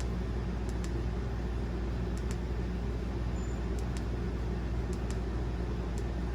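A steady low hum, with the Folomov 18650S flashlight's switch clicking about ten times, mostly in quick pairs.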